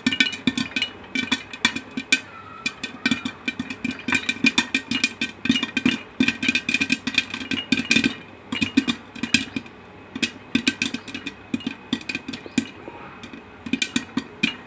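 Popcorn kernels popping inside a closed aluminium pressure cooker: a rapid, irregular patter of sharp pops, several a second, over a steady hum.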